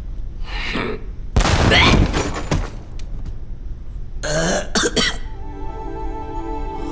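Cartoon soundtrack: several short sound effects and vocal noises, then music holding steady notes near the end.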